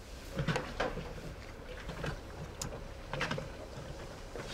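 Footsteps on a wooden deck and the handling of a spinning rod and reel: a few scattered soft knocks and clicks over a faint steady hum.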